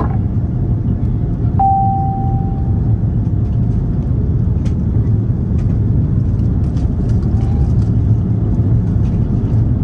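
Steady low rumble of a jet airliner's cabin noise on approach to landing. About one and a half seconds in, a single electronic cabin chime rings and fades away.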